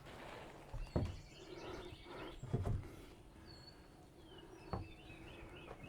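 Faint bird chirps in the background, short high calls a few times, with a few soft thumps about a second in, around two and a half seconds, and near the end.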